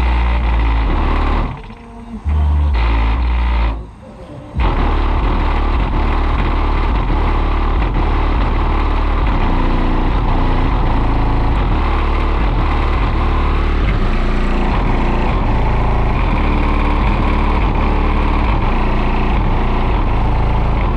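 Nine Sundown Audio X8 8-inch subwoofers in a vehicle's cargo area playing bass notes at very high power. Heavy low bass steps between pitches and cuts out twice in the first few seconds, then runs on continuously. The amplifier is clipping pretty hard.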